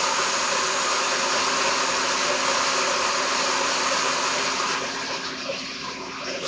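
Countertop blender running, puréeing butternut squash soup in its jar; a steady motor whir that quietens about five seconds in.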